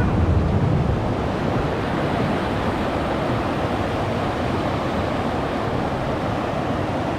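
Rushing whitewater of river rapids around a raft, a steady wash of water noise with a heavier low rumble in the first second.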